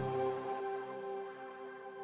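Ambient background music: held chords slowly fading out.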